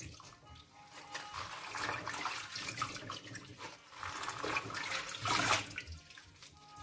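Water splashing and dripping as lettuce leaves are rinsed and swished in a strainer in a stainless-steel sink. It comes in uneven swells, loudest about five seconds in.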